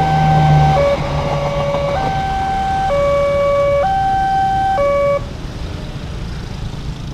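Railway level-crossing electronic warning alarm sounding a two-tone high–low signal, each tone held about a second, that cuts off suddenly about five seconds in as the crossing clears. Motorbike traffic is then heard moving over the crossing.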